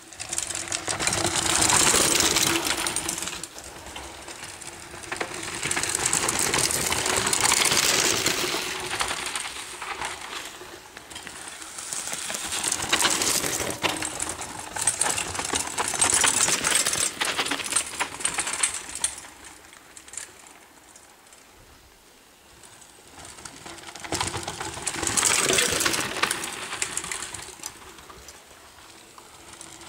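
Mountain bikes passing one after another on a dirt forest trail, about five passes. Each pass brings a swell of tyre noise and the rapid ticking of a rear freewheel hub as the rider coasts by.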